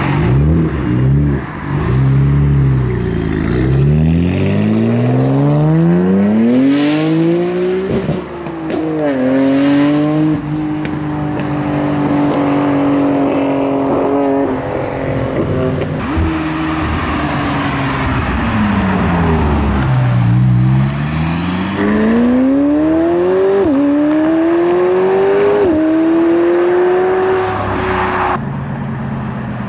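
Supercar engines accelerating hard away, pitch climbing through the gears with a sudden drop at each upshift, then falling away and climbing again as a second run of acceleration begins, loud throughout.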